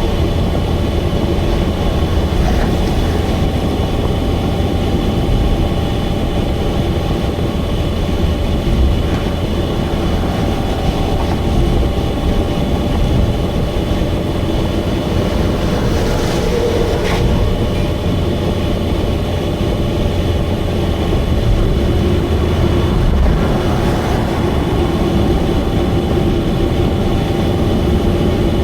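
Subaru Vivio kei car running steadily at highway speed, a loud unbroken drone of engine, exhaust and road noise. The loudness comes from an exhaust leak.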